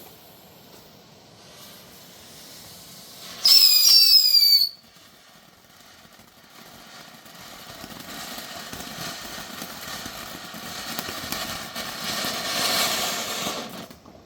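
Junior Cuckoo firework going off: a loud, quick run of high falling whistles, then a steady spraying hiss that slowly builds and cuts off just before the end.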